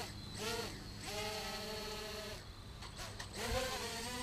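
Blade 200QX quadcopter's small electric motors and stock propellers whining, the pitch swelling up and falling back again and again as the throttle changes, holding steady for about a second in the middle. A low thump comes about three and a half seconds in.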